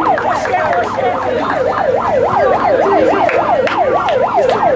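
A siren sounding a fast yelp: a pitch that sweeps up and drops back about four times a second, over crowd chatter.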